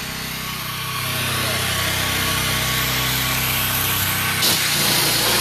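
Pressure washer running steadily: a hum under a dense spray hiss, with a single knock about four and a half seconds in.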